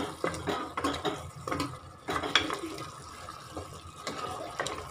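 Steel ladle stirring goat trotters in a thick tomato gravy in a pressure cooker, with irregular knocks and scrapes of the ladle against the pot amid wet gravy sounds.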